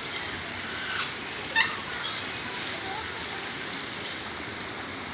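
Small bird chirping: two short, high calls about half a second apart, the second falling in pitch, over a steady hiss.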